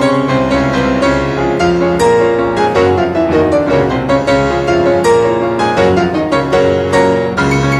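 Background piano music: a run of quick struck notes.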